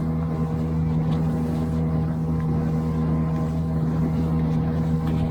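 Outboard motor driving an inflatable boat along at a steady cruising speed, running evenly with a constant hum.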